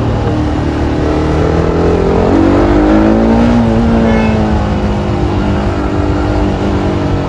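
TVS Apache RR310 motorcycle's single-cylinder engine through its stock exhaust, riding in traffic. The revs climb for about three seconds, then ease back off.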